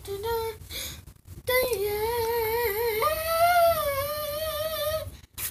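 A boy singing a wordless held note. After a short note at the start and a pause, one long 'ooh' wavers and steps up in pitch about halfway through. It ends with a brief click.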